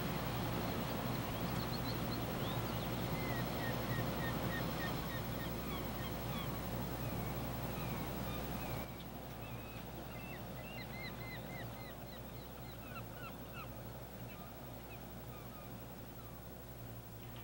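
Many birds calling in quick, short chirps, some in rapid runs, over a steady low hum. The whole sound drops abruptly in level about nine seconds in.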